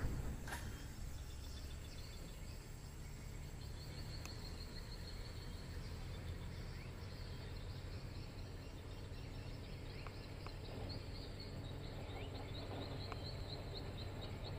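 Caterpillar 120H motor grader's diesel engine running at a distance as a steady low drone. High, rhythmic chirping calls come in over it from about four seconds in.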